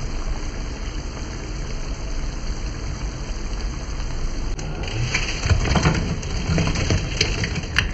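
Pork and sauce sizzling in a metal frying pan, a steady hiss, with a metal spatula scraping and clinking against the pan in the second half.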